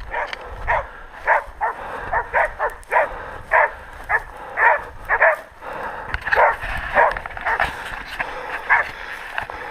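Pig-hunting dogs barking over and over, about two barks a second with a short break about halfway through. This is bail barking: the dogs are holding a wild pig at bay.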